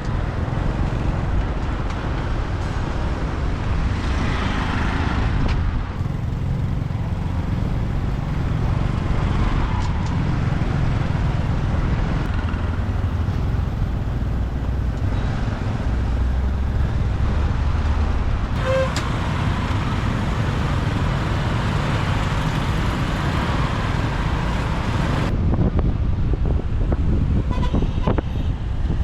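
Motorbike riding through city traffic: a steady rumble of engine and wind, surrounding cars and bikes, and now and then a horn toot.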